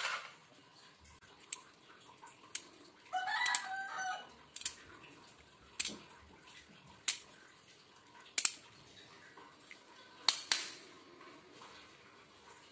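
Sharp single clicks, one every second or two, as BBs are pressed one at a time into an airsoft pistol's spring magazine. A rooster crows once about three seconds in.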